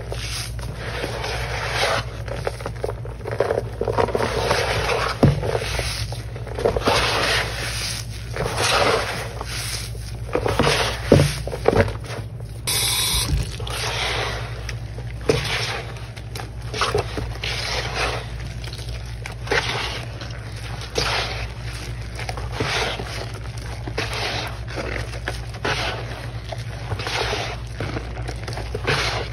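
Hands squeezing and squishing torn dry-turned-wet sponge pieces in a foamy paste of Ajax cleaning powder and blue Mr. Clean liquid, giving repeated wet squishing and scraping strokes roughly once a second. A steady low hum runs underneath.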